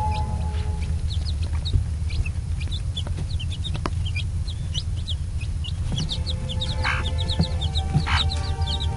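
Newly hatched chicks peeping, many short high falling chirps several times a second, with a hen clucking twice near the end over a steady low hum.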